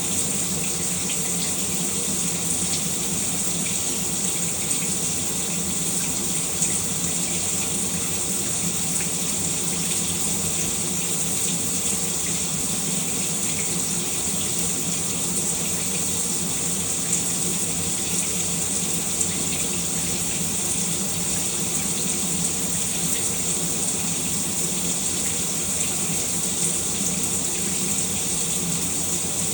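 Shower water spraying in a steady, unbroken hiss, strongest in the high range, with no change in flow.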